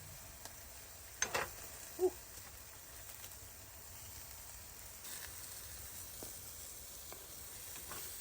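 Food sizzling in a pan, a steady low hiss that grows slightly louder about five seconds in, with a few short knocks of cookware a little after one second and at two seconds.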